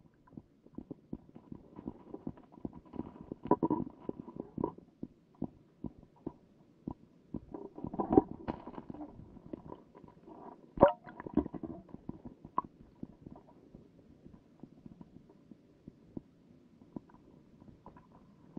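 Muffled knocks, clicks and low rumbling heard through an underwater camera's housing beneath the ice, irregular throughout, with a few louder bursts and one sharp knock a little past the middle.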